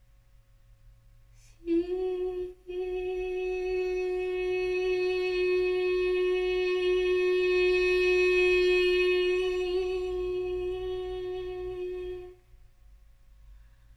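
A woman's voice holding one long, steady note. After a brief start and a short break for breath about two seconds in, the note is held for about ten seconds and stops near the end.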